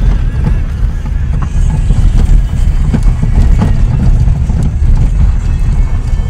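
A car driving on an unpaved gravel road, heard from inside the cabin: a loud steady low rumble of tyres and engine, with scattered short knocks and rattles.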